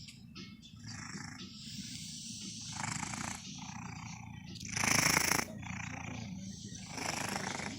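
A kitten snoring loudly: a low rumble under rasping breaths that come about every two seconds. The breath about five seconds in is the loudest.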